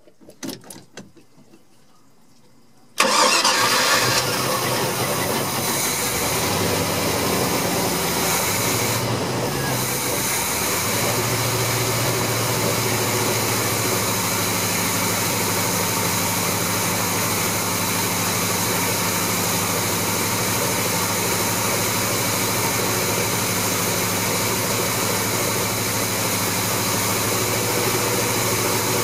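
Engine on a freshly rebuilt Rochester Quadrajet 4MV four-barrel carburetor starting suddenly about three seconds in, then settling into a steady idle. It catches and keeps running on the rebuilt carburetor.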